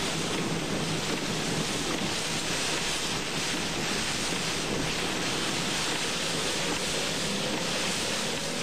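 Very high winds, which the driver estimates at about 80 miles an hour, and wind-driven rain beating on a moving car. It is a steady, even rush of noise.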